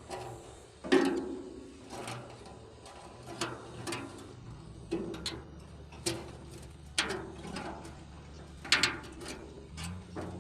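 Irregular sharp knocks and clanks, roughly one a second, each with a short ring, the loudest about a second in and another near the end, over a low steady hum.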